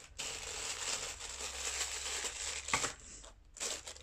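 Small clear plastic coin bag crinkling as it is handled: a steady crinkle for about three seconds, then a few shorter rustles.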